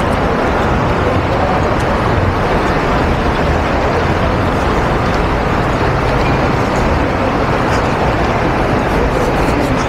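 Steady road traffic noise from a busy multi-lane city avenue, an even wash of cars and other vehicles running past.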